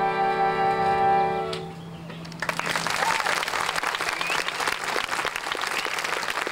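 A big band of brass, reeds, French horn and tuba holds its final sustained chord and cuts it off sharply about a second and a half in. After a short pause, audience applause starts and continues.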